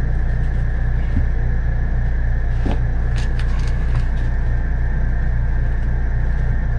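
A steady low mechanical rumble with an even pulsing throb, like a machine running, with a few sharp clicks and taps between about 2.5 and 4 seconds in.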